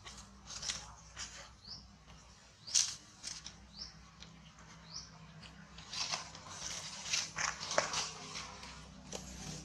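Dry leaves crackling and rustling in short bursts as macaques shift about on the leaf-covered ground, thickest about six to eight seconds in. A few brief rising chirps sound through it.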